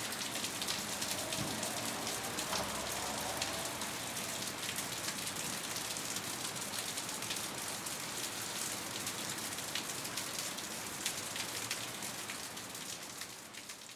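Steady rain ambience: an even hiss of rainfall with many small drop ticks, fading out at the very end.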